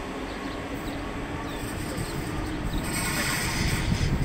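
Renfe Cercanías electric commuter train running along a station platform, its rumble growing louder and fuller as it draws level with the listener about three to four seconds in.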